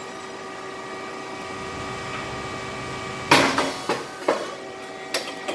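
Small round rice cake popping machine running with a steady hum. About three seconds in there is a sudden loud pop-and-hiss as the hot mould opens and releases a batch of 15 puffed cakes, followed by a few lighter clatters.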